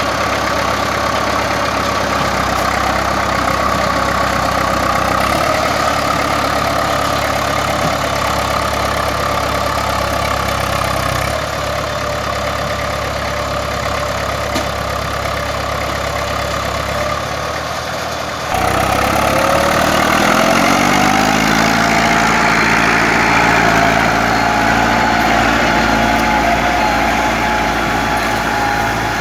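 IMT 560 tractor's three-cylinder diesel engine running steadily, then, about two-thirds of the way in, revving up over a couple of seconds and holding at higher revs under load as it drags logs.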